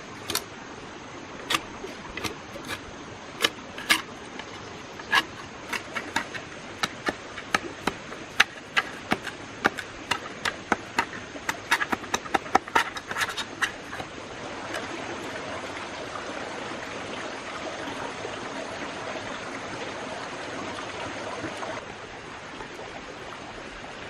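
Heavy knife striking and cutting into a bamboo stalk: an irregular run of sharp wooden cracks for about the first fourteen seconds, then a steadier rough scraping noise for several seconds.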